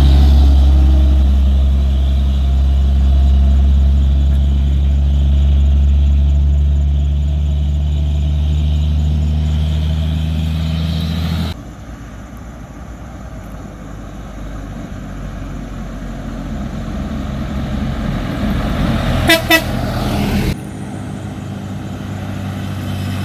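A heavy truck's diesel engine running low and steady, pulling a climb, cuts off suddenly about eleven seconds in. Quieter road noise follows, with two short horn toots near the end, and then a truck engine drones again.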